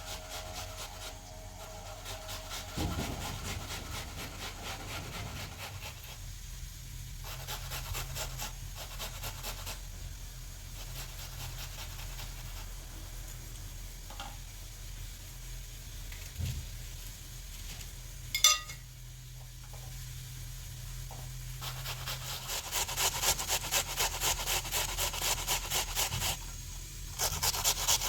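Rhythmic scraping or rubbing strokes in food preparation, growing louder near the end, with a single sharp clink partway through.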